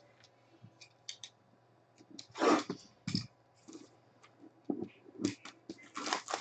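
Plastic shrink wrap being torn and peeled off a sealed box of trading cards: scattered crinkles and short rips, the loudest about two and a half seconds in and a quick run of them near the end. A faint steady low hum runs underneath.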